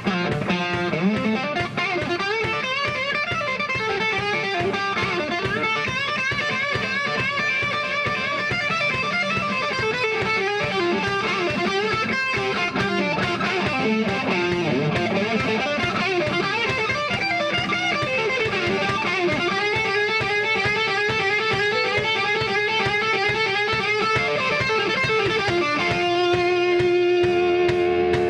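Live rock band playing an instrumental stretch with no singing, electric guitars out front over keyboard and bass.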